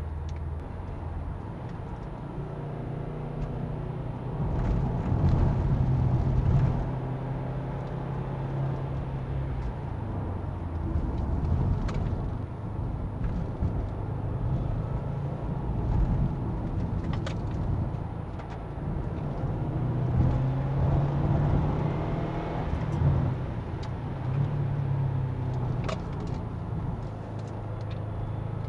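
In-cabin sound of a Subaru WRX driving, its turbocharged flat-four engine running over tyre and road noise. The engine note rises and falls several times with the throttle, loudest about five seconds in and again past twenty seconds.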